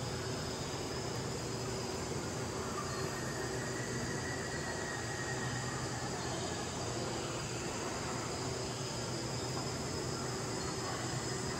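Steady mechanical hum and hiss, with a few constant low tones and a faint higher tone that comes and goes midway.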